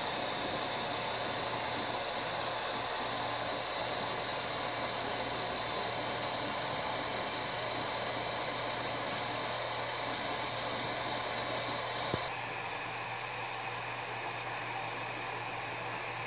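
Prusa i3-type 3D printer running mid-print: its cooling fans whir steadily over a low hum. About twelve seconds in there is a sharp click, after which the higher hiss drops away and the whir goes slightly quieter.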